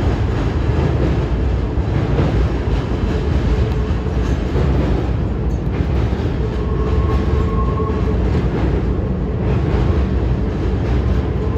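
Freight train of loaded flatcars rolling past overhead: a steady, loud rumble and rattle of steel wheels on the rails, with a brief faint squeal about seven seconds in.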